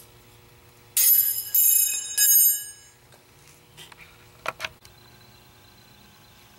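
Steel snap ring and snap-ring pliers ringing against the rear wheel bearing carrier as the ring is worked out of its groove: three sharp metallic rings in quick succession about a second in, then a few small clicks.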